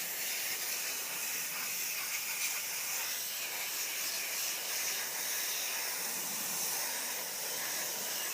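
Garden hose spraying water onto the front coil of an air conditioner, rinsing the coil after cleaning: a steady hiss of water spray.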